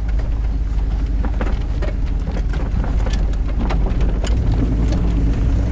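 Four-wheel-drive vehicle driving over a rough off-road track: a steady low rumble of engine and tyres, with scattered knocks and rattles as it bumps along.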